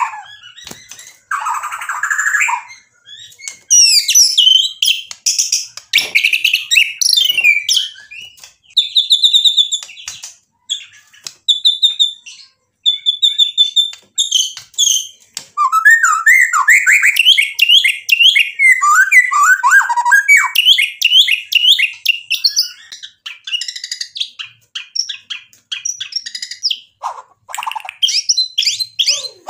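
White-rumped shama (murai batu) singing a long, varied song in bursts with short pauses. It opens with a harsh call, moves into a run of short, repeated high whistled notes, and then into fast rising and falling trills and chatter, the full-material (isian) song of a bird in top singing form.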